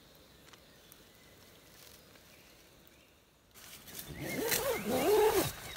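Faint background at first; about three and a half seconds in, fabric rustling starts, and a man's wordless, drawn-out groan follows, its pitch sliding up and down, the sound of someone waking and stretching in a tent.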